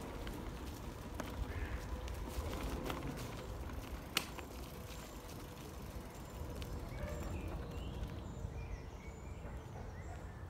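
Outdoor ambience on a moving microphone: a steady low rumble of wind and movement, a single sharp click about four seconds in, and small birds chirping in the second half.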